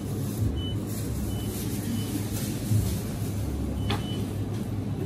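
Steady low engine or motor hum, with a few brief high beeps scattered through it and a faint click about four seconds in.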